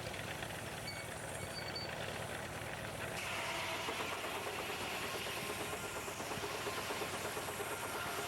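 Steam-engine-driven sawmill running steadily. About three seconds in the sound grows louder and brighter, with more hiss.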